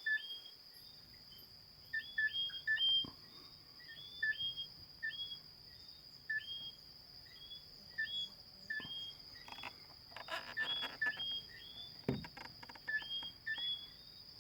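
A chorus of whistling frogs: repeated two-note whistles, a short lower note followed by a higher note that rises, from several frogs overlapping, over a steady high-pitched tone. A few clicks and rustles come about ten seconds in.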